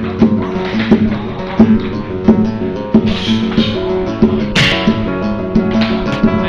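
Background music: a guitar-led instrumental with percussion keeping a steady beat.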